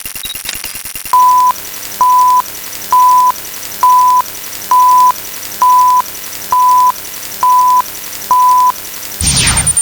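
Nine short, identical electronic beeps, one steady pitch, sounding about once a second over a faint hum. They follow about a second of fast buzzing clicks, and near the end a loud falling electronic sweep with a high whine begins.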